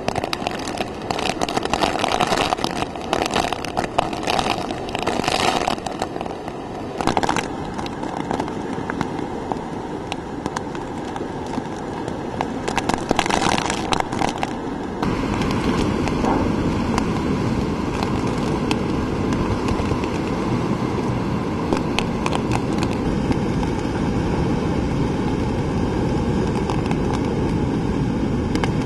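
Hurricane-force wind with driving rain, buffeting the microphone in uneven gusts. About halfway through it turns into a steadier, continuous rush of wind and rain.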